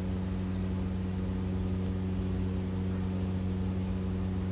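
Steady low hum with an even, unchanging pitch, from a running machine or electrical hum in the workshop, with a faint light tick or two of parts being handled.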